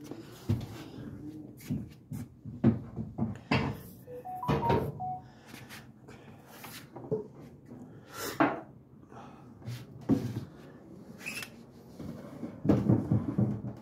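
Wooden dresser drawers and cabinet doors being handled and moved: a string of irregular wooden knocks, bumps and clatters.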